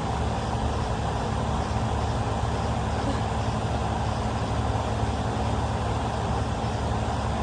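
Steady low rumble of a motor vehicle, with no thunder and no sudden sounds.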